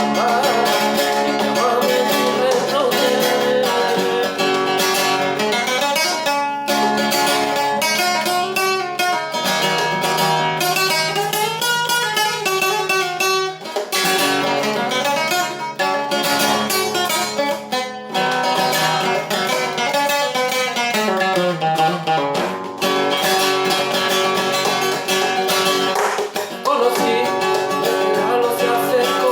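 Guitar playing an instrumental piece, with quick runs of plucked notes that climb and fall.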